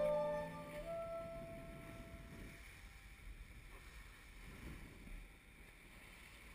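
Instrumental background music fading out, its last held note ending about two and a half seconds in, leaving only a faint low rumble.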